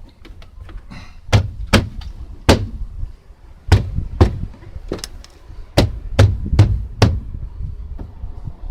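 A series of about ten sharp, irregularly spaced knocks and thumps as a BMW E65's inner door panel is whacked back onto the door.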